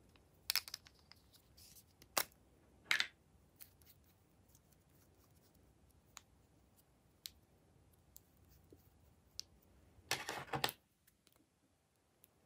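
Plastic lipstick tubes being uncapped and handled, with sharp clicks of the caps, several in the first three seconds and a few fainter ticks after. About ten seconds in comes a short, louder burst of metal scissors snipping and scraping.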